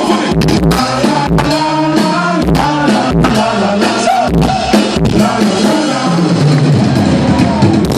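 Live band music: a singer over drum kit and bass, with steady drum hits.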